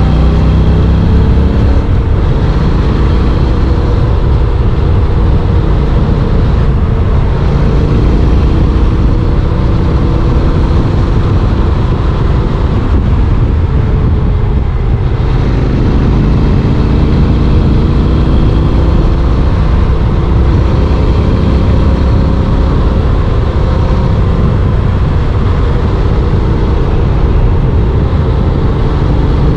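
Honda NC750X's parallel-twin engine running under way, heard from on board the motorcycle. The engine note drops about halfway through, then climbs again as it pulls away.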